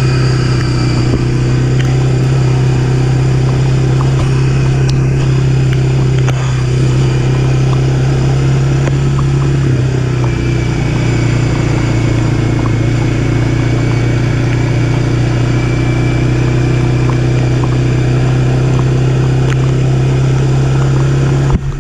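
ATV engine running steadily under way on a dirt trail, heard close up from the rider's seat: a loud, even drone that holds nearly the same pitch throughout.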